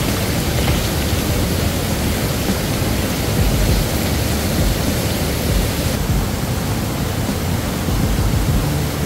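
Steady rush of a fast-flowing mountain river running white over rocks, an even noise with no breaks.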